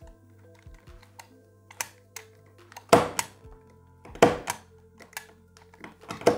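Cutting pliers snipping and clicking on the end of an eyeglass temple to shorten it: sharp snaps in pairs about three and four seconds in and another near the end, with smaller clicks between, over soft background music.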